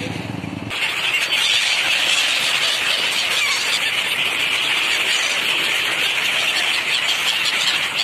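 A large flock of gulls calling all at once: a dense, shrill, unbroken chorus of squealing cries.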